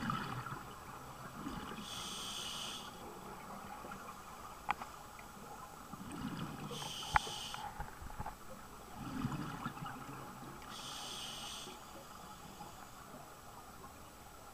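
A scuba diver breathing through a regulator underwater. Each inhale hisses, three times about four and a half seconds apart, and each exhale sends out a rush of bubbles. Two sharp clicks sound about five and seven seconds in.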